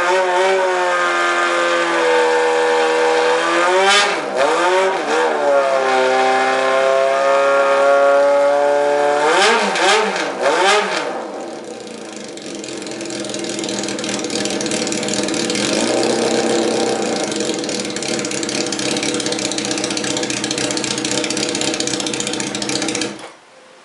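Honda CBX 750 F's air-cooled inline-four on an open exhaust, blipped and held at raised revs several times in the first eleven seconds, with rising and falling pitch. It then drops to a lower, rougher steady running that stops abruptly near the end.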